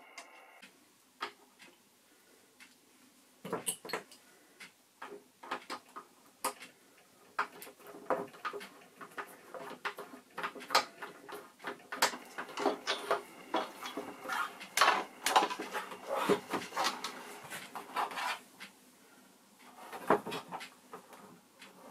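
Irregular clicks, taps and clatter of a screwdriver working the rear-cover screws of a Super 8 projector, with tools and small parts set down on the workbench; the projector's plastic rear cover is handled and lifted off near the end.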